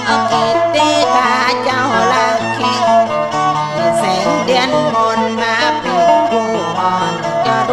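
Instrumental passage of khap so Nan, Northern Thai sung poetry: a bowed salo fiddle plays an ornamented, wavering melody over plucked sueng lute, above a steady low drone.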